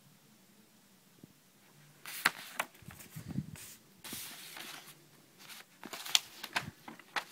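Paper sheets of stickers and drawings handled and shifted by hand: rustling with sharp crinkles and taps in two bursts, starting about two seconds in.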